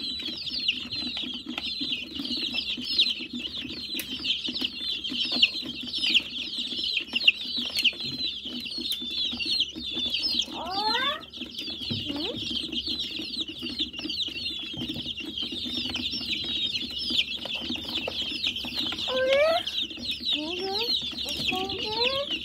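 A brooder full of young chicks peeping nonstop, dozens of short high cheeps overlapping into a constant chorus; the chicks are hungry. A few lower rising calls break through around the middle and near the end, over a steady low hum.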